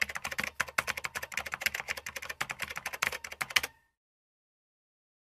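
Rapid computer-keyboard typing clicks, used as the sound effect for on-screen text typing itself out letter by letter. The clicking stops abruptly about two-thirds of the way through.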